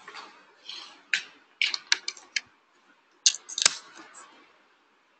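A series of short sharp clicks and taps: a single one about a second in, a quick run of four or five around two seconds in, and two more about three and a half seconds in.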